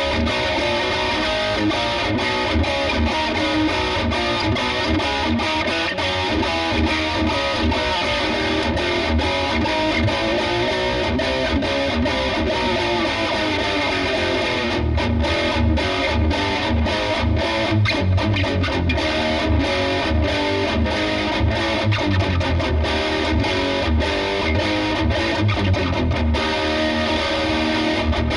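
Schecter V-1 Hellraiser FR electric guitar with EMG active pickups played with heavy distortion: a continuous riff, with heavier low notes and quick attacks through the middle and latter part.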